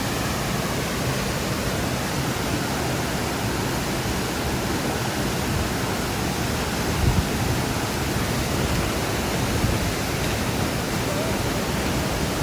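Forest stream running with a steady rush of water, with a brief low thump about seven seconds in.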